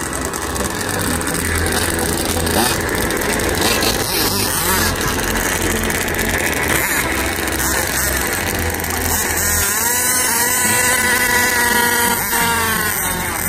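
Radio-controlled drag car making a pass, its motor's whine rising in pitch and levelling off about ten seconds in, over a steady noisy background.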